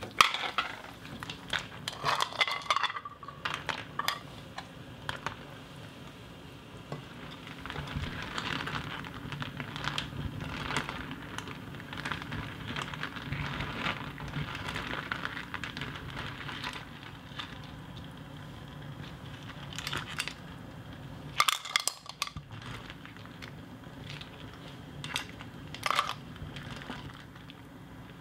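Cooking sounds: Manila clam shells clattering in a bowl, then a silicone spatula stirring and knocking in a pot of boiling water, with scattered irregular clinks and knocks over a light bubbling hiss and one sharper knock about three quarters of the way in.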